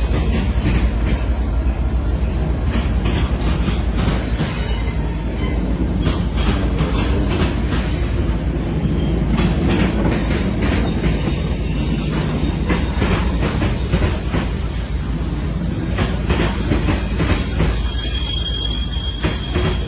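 A train running past with a steady heavy rumble and rapid wheel clicks over the rail joints. Brief high-pitched wheel squeals come about five seconds in and again near the end.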